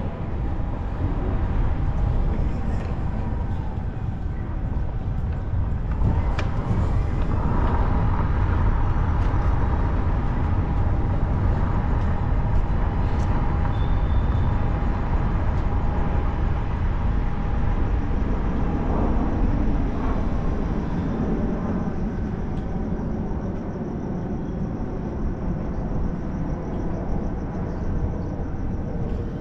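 Car driving slowly along a city street: a steady low rumble of engine and road noise, a little quieter near the end.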